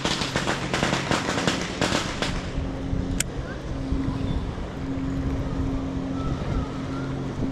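Fireworks crackling and popping: a quick run of sharp crackles for the first couple of seconds, then a single pop, over a steady low engine hum.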